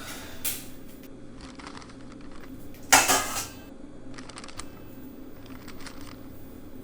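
A series of short rustling and clattering handling sounds, about five in all, the loudest about three seconds in.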